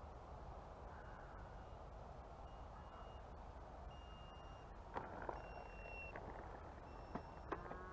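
Faint steady hiss with a few brief, thin high tones and a couple of soft knocks in the second half, as a small electric RC plane touches down and rolls on a dirt field.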